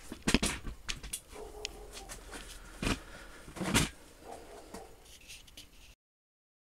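A few scattered knocks and clunks of handling around a metal lathe. Near the end the sound cuts out to dead silence.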